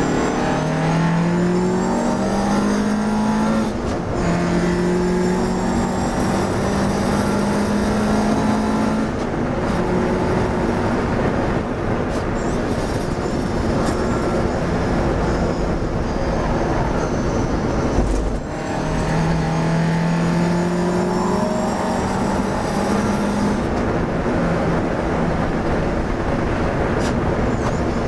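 Classic race car's engine heard from inside the cockpit under hard acceleration. The pitch climbs steadily and drops back at each gear change, about four times, with a brief lift and a sharp knock about 18 seconds in.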